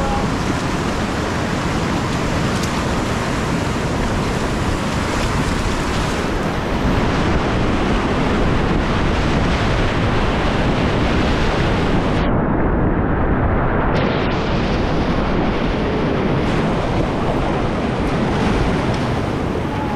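Loud, steady rush of whitewater rapids on the Upper Youghiogheny, heard from a kayak running the rapid. About twelve seconds in, the hiss drops out and the sound goes muffled for nearly two seconds before the full rush returns.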